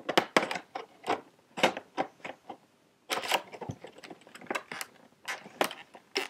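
Stiff plastic blister packaging crackling and clicking irregularly as hands work a spring airsoft pistol out of it, with a short pause about halfway through.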